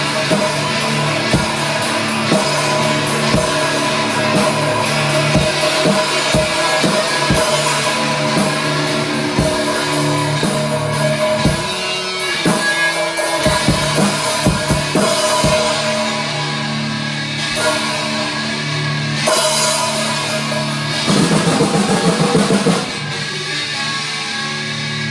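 Live rock band playing, with a drum kit and guitar over sustained chords. The drum hits thin out in the second half, and there is a short run of fast repeated strokes shortly before the end.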